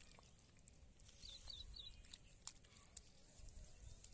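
Near silence: a few faint wet clicks of bare hands pressing into soft mud, with a short run of faint high bird chirps between one and two seconds in.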